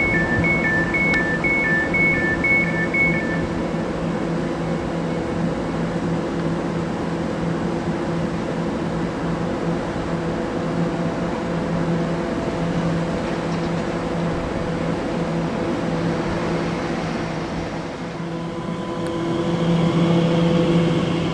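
Elizabeth line Class 345 Aventra electric train standing at the platform with a steady electric hum. For the first three seconds a rapid run of two-tone door-closing beeps sounds. Near the end the hum swells with a rising whine as the train starts to pull away.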